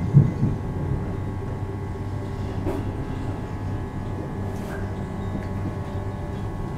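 Steady running noise heard from inside a moving electric commuter train: an even low rumble under a constant electric hum.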